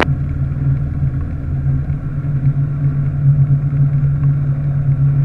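Evektor light-sport aircraft's Rotax 912 engine and propeller running at low taxi power, a steady drone heard from inside the cockpit.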